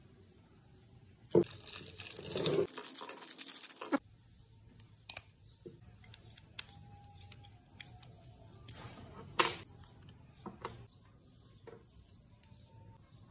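Small clicks and taps of a brake master cylinder's metal piston, spring and rubber cups being handled and worked apart by hand on a workbench. A plastic parts bag crinkles from a little after one second in to about four seconds in.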